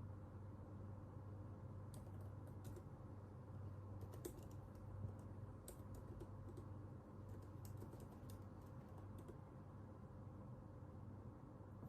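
Faint computer keyboard typing in irregular short runs of keystrokes, over a steady low hum.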